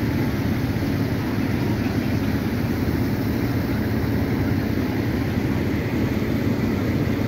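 Fire truck's diesel engine running with a loud, steady low rumble.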